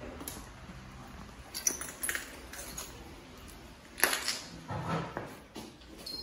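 A person sliding down an enclosed tube slide: scattered knocks and scrapes against the tube, then a sharp bang with a short ring about four seconds in, followed by a duller thump.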